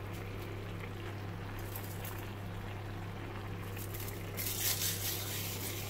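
Zucchini and bulgur stew simmering softly in a pan, under a steady low hum. About four and a half seconds in, a dry rustling crackle comes in as dried basil is crushed between the fingers over the pan.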